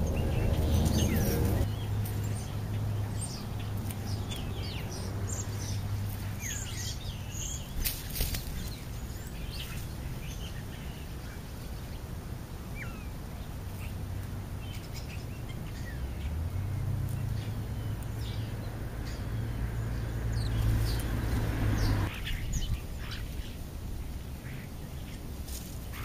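Crows and European starlings calling: many short chirps and whistles with some harsher calls scattered throughout. A low hum sounds at the start and again in the second half, cutting off abruptly near the end.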